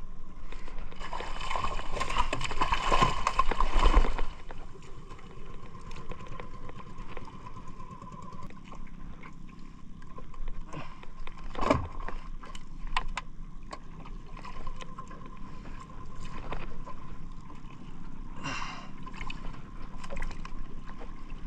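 Water splashing and gurgling beside a wooden outrigger boat as a tuna is hauled aboard on a hand line. A loud splashy rush comes about a second in and lasts a few seconds, then sharp knocks on the hull, the loudest a little past halfway.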